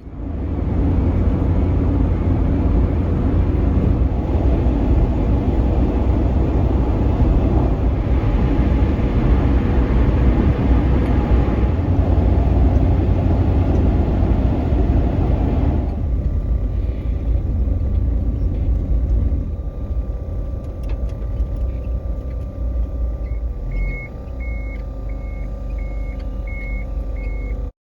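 Car road noise while driving: a steady low rumble that eases and grows quieter about halfway through. Near the end there is a run of about six short, evenly spaced high beeps.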